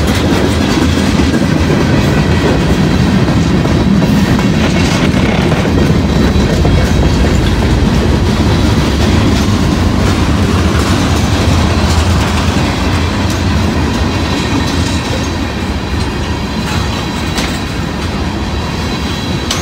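Freight train of tank cars rolling past close by: a steady rumble of steel wheels on rail with clickety-clack over the rail joints. The sound eases a little in the last several seconds.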